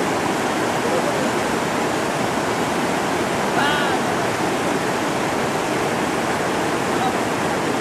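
Rushing river rapids: a steady, dense roar of white water over rocks.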